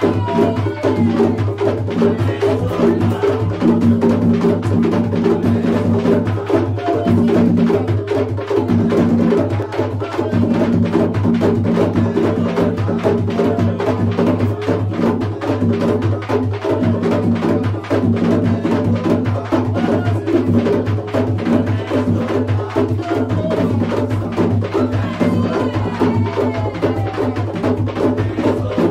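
Afro-Brazilian drum music from São Luís: drums played in a fast, dense, unbroken rhythm.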